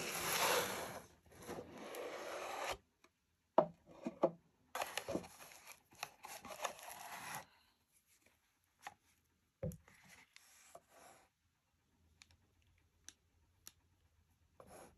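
Hands handling a cardboard gift box and the tissue paper inside it: several bursts of rubbing and rustling with a couple of sharp knocks, then only faint small clicks in the last few seconds.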